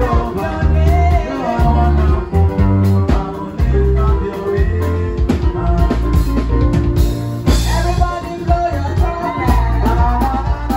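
Live band playing dance music: electric guitar, drum kit and a deep bass line, with singing over it.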